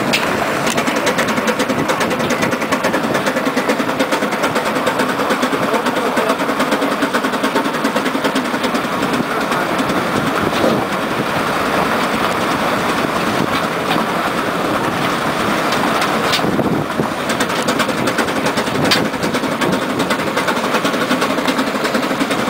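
Steam road locomotive on the move along a gravel track: a loud, steady clattering rumble of its running gear and wheels.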